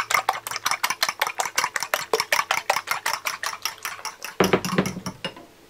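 Fork whisking beaten eggs in a glass bowl, the tines clicking against the glass about eight times a second. The whisking stops about four seconds in, followed by a brief, louder scrape.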